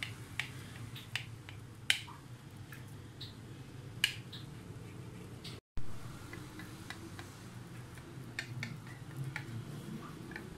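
Kitchen knife cutting a slab of steamed egg on a plate, the blade giving sharp, irregular clicks and taps against the plate, with a faint low hum underneath. The sound drops out completely for an instant a little past halfway.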